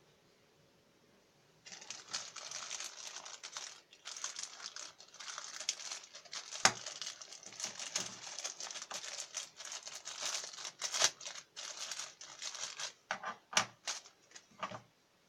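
Small clear zip-lock plastic bag crinkling and rustling as it is handled and opened, starting about a second and a half in, then a few separate sharp clicks near the end as the plastic phone holder clip is handled on the desk.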